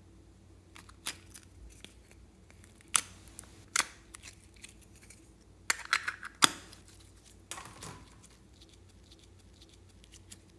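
Hard clear plastic heart-shaped case clicking and snapping as it is handled and pried open, a scattering of sharp clicks with the loudest around six seconds in. A softer rustle follows about eight seconds in.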